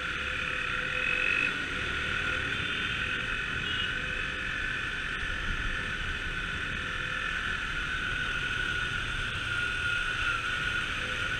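KTM 390 motorcycle's single-cylinder engine running at low road speed, heard from the rider's seat, with wind rushing over the microphone.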